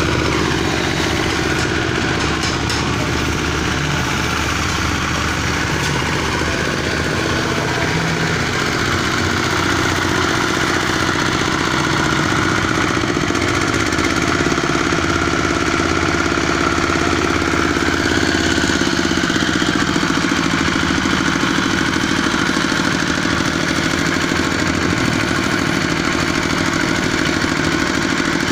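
Small stationary engine running steadily while it drives a livestock feed mixer, its pitch dipping slightly partway through and then recovering.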